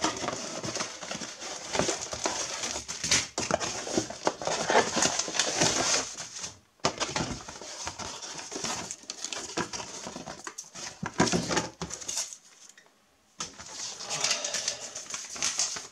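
Cardboard model-kit box being opened and its paper contents handled: continuous rustling and scraping of cardboard and paper with light knocks, broken by a short pause about twelve seconds in.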